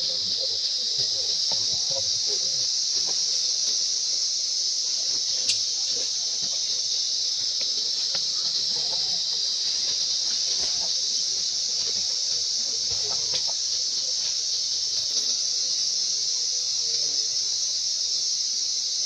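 Steady high-pitched drone of forest insects, unbroken throughout, with a few faint clicks and rustles underneath.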